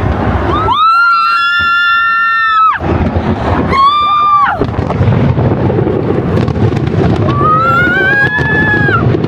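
Fireworks going off in a dense, continuous rumble of bangs. Over them a person shrieks in excitement three times: a long held high cry, a shorter one, then one that slowly rises in pitch near the end.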